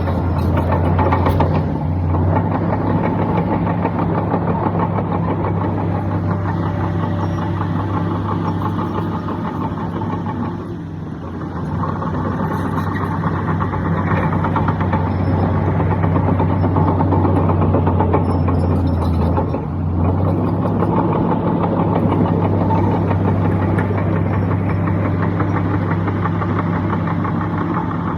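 Large diesel engine of heavy earthmoving equipment running steadily with a low drone, easing off briefly twice.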